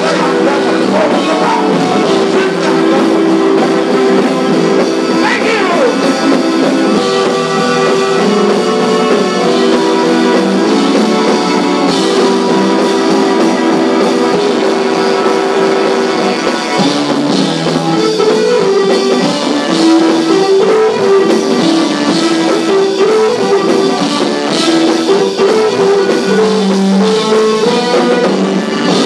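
Live gospel band music: electric guitar, drum kit and keyboard playing together, loud and continuous.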